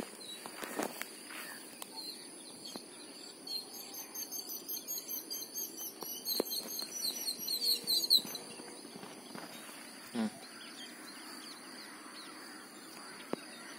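Outdoor ambience of birds chirping in quick trills, loudest a few seconds in, over a steady high-pitched insect drone, with a few faint knocks.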